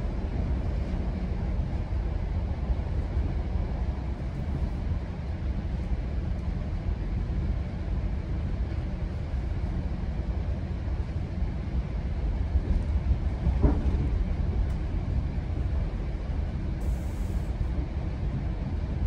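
A GO Transit commuter train running at speed, heard from on board: a steady low rumble of wheels on rails, with one short sharper sound about two-thirds of the way through.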